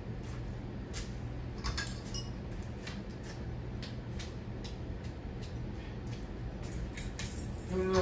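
Hunter Stratford 52-inch ceiling fan running, a steady low hum with light clicks and clinks recurring about twice a second.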